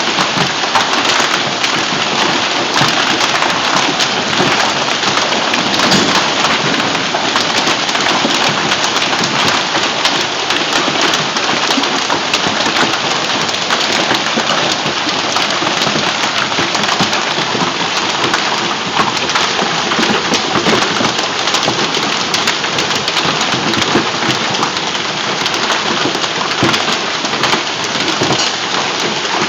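Heavy hailstorm pelting down with rain: a dense, steady clatter of countless hailstones striking.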